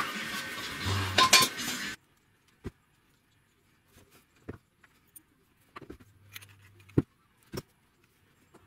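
A loud steady noise cuts off about two seconds in. After that come scattered sharp clinks and knocks of ball bearings and small steel parts being handled on a cloth-covered wooden bench, the loudest about seven seconds in.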